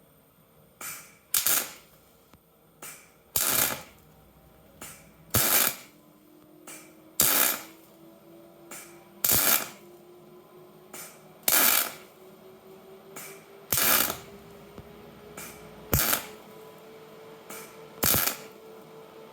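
Wire-feed (MIG) welder laying short tack-by-tack bursts, about one every two seconds, to build up a worn gear tooth. A faint hum slowly rises in pitch from about a third of the way in.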